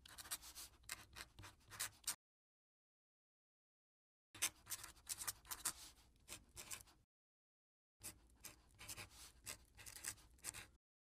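Pen scratching on paper in three runs of quick strokes, each two to three seconds long, broken by dead silence.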